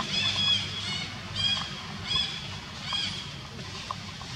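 A series of short, high-pitched squeaky calls from an animal, about five of them in three seconds, over a low, steady hum; the calls stop about three seconds in.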